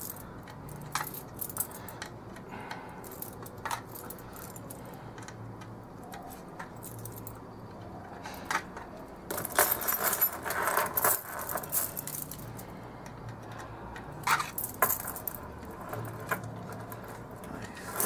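Hard plastic packaging being handled: scattered clicks and small rattles as a toy submarine is worked free of its plastic display base. There is a busier spell of clattering and rustling about ten seconds in, and a couple of sharp clicks a few seconds later.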